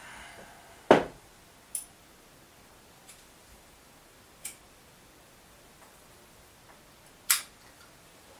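A handful of separate sharp clicks and light knocks of small hard objects handled on a tabletop, irregularly spaced; the loudest comes about a second in and another strong one near the end.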